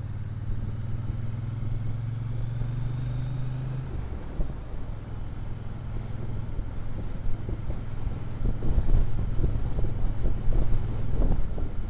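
Motorcycle engine running at a steady cruise, heard from inside the rider's open helmet; about four seconds in the steady engine note breaks off, and wind buffeting on the microphone grows louder and gustier toward the end.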